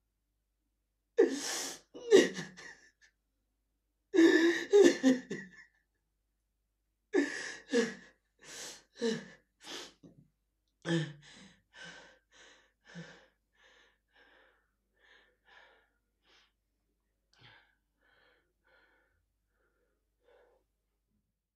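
A man sobbing: heavy, gasping sobs at first, then a run of shorter catching breaths that grow fainter and die away.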